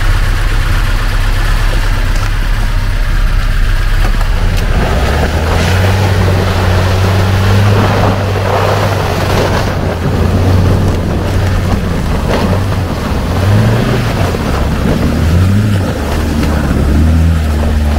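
Off-road 4x4's engine labouring through deep water or mud, with water churning around it. The revs climb and drop several times in the last few seconds.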